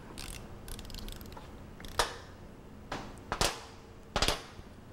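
Metal clicks and knocks of wrenches and hardware while the bolt through a boat trailer jack's wheel is tightened and the jack is handled on a workbench: a few light clicks in the first second, then four sharper knocks over the last three seconds.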